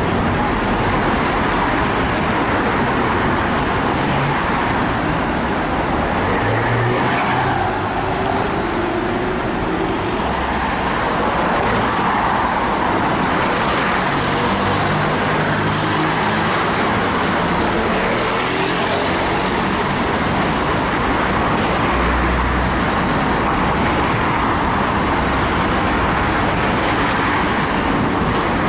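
Steady road traffic: cars and other motor vehicles running past, with engine hum and tyre noise.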